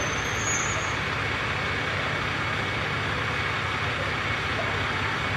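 Diesel engine of a Kyoto Tango Railway diesel railcar idling steadily, a low even rumble under a broad hiss.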